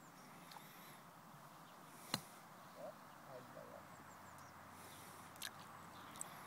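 A golf club hitting sand and ball in a bunker shot: one sharp thwack a little over two seconds in, with two fainter clicks later on. Faint bird chirps in the background.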